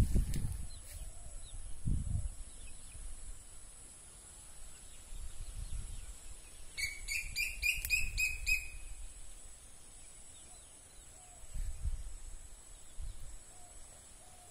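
A bird calling a quick series of about six sharp, evenly repeated notes in the middle, over outdoor background noise. Low thumps and rumbles on the microphone come near the start and again toward the end.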